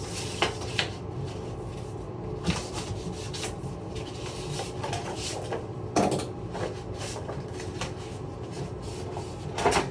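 Scattered knocks, clicks and rubbing of things being handled, over a steady low hum.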